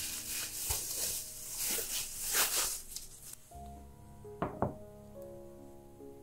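Cling film and disposable plastic gloves crinkling as the film is wrapped around a ball of dough. About a second after the crinkling stops, a glass food container is set down on a wooden cutting board with two quick knocks. Background music plays under both.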